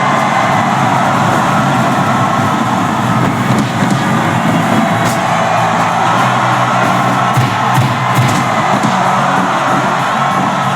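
Loud music playing continuously.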